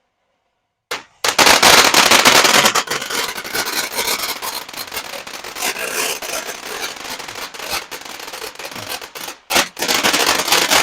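Consumer fireworks going off with dense, rapid crackling and popping. The sound starts suddenly about a second in, is loudest for the first couple of seconds, thins, then flares up loud again after a brief gap near the end.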